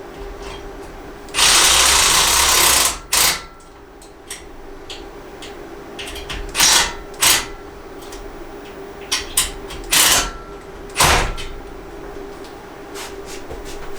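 Power drill run in short bursts, driving fasteners: one longer run of about a second and a half near the start, then several brief pulses.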